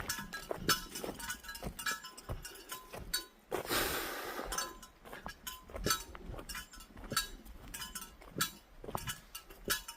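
Footsteps on a forest trail with irregular small metallic clinks and jingles from carried gear, and a brief rush of noise about four seconds in.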